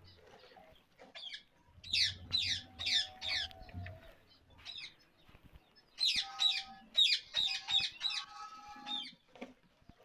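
Ringneck parrots squawking: two runs of harsh, quickly repeated calls, about three a second, each call sweeping down in pitch. The first run starts about two seconds in, the second about six seconds in, and it lasts until near the end.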